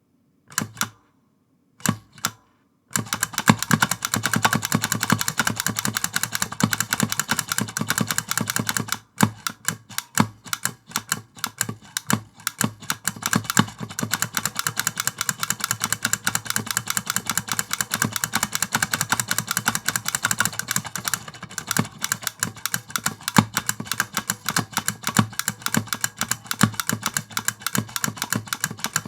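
Clicky Big Switch giant mechanical key switches in a wooden case being typed on: a few single clicks, then a fast, dense run of sharp clicks. There is a brief pause about a third of the way through.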